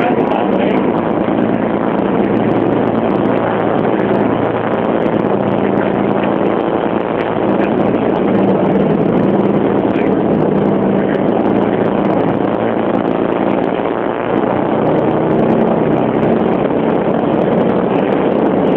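Motorboat under way: steady engine hum under the rush of water and spray along the hull.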